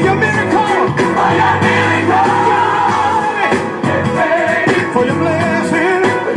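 Music with a singing voice over instruments, loud and continuous.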